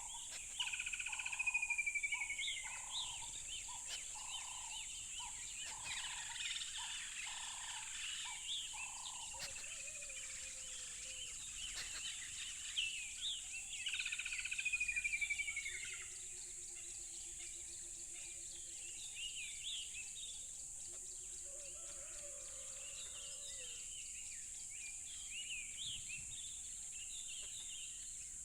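Several wild birds chirping and singing together, with a fast descending trill about a second in and again about 14 seconds in. A series of lower repeated calls runs through the first nine seconds, and low warbled notes come later. A steady high hiss sits underneath.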